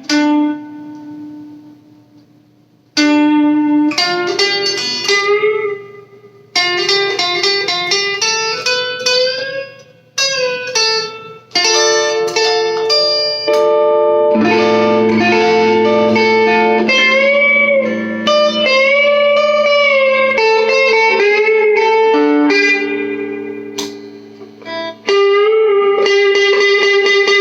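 Electric guitar played through an all-tube amp: picked notes and chords ringing out, with a few bent notes near the middle. A note dies away into a near-quiet lull at the start before the playing picks up again about three seconds in.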